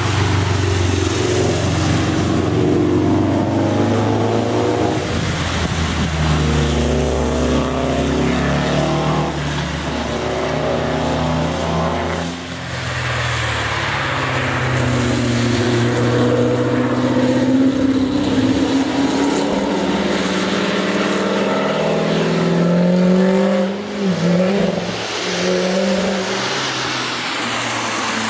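Cars driving past one after another on a wet race track, their engines rising in pitch as they accelerate, over the hiss of tyres on standing water. Among them are a Subaru Impreza WRX STI's flat-four and a Chevrolet Corvette's V8. The sound drops off briefly between cars, about halfway through and again near the end.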